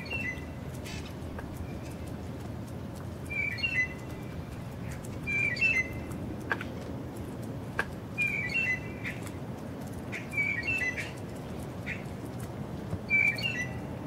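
A small bird calling in short clusters of chirping notes, repeated about every two to three seconds, over a steady low background noise.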